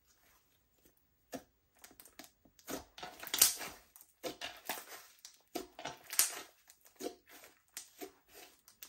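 Slime being pressed and pulled by hand, making irregular sticky clicks and crackles, loudest about three and a half and six seconds in.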